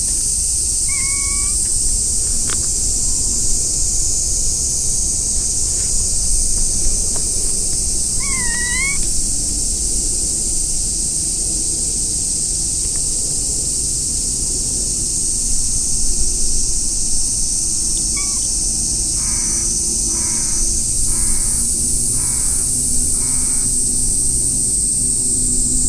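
A crow cawing outdoors: single calls about a second in and about a third of the way through, then a run of five caws spaced under a second apart about two-thirds through, over a steady high-pitched hiss.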